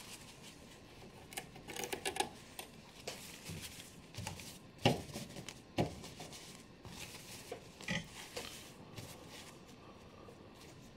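Scattered rustling and small clicks of hands handling and smoothing a stiff, shiny synthetic fabric, the loudest a little under five seconds in.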